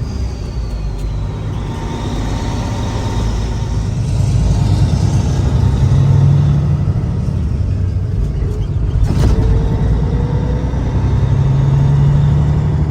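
A vehicle driving on the road: steady engine and road rumble, with the engine note swelling a few times as it pulls. A single sharp knock comes about nine seconds in.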